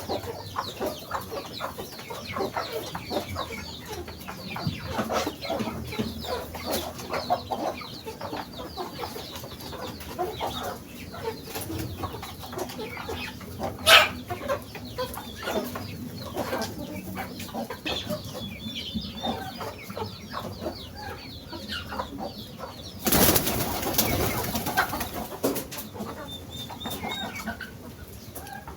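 Backyard chickens clucking and calling over and over. There is a sharp click about halfway, and a loud rustling burst near the end.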